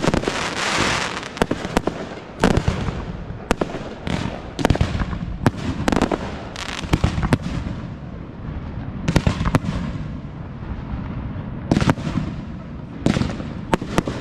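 Aerial fireworks shells bursting. A dense crackle fills the first second or so, then sharp bangs follow at irregular intervals, about one a second.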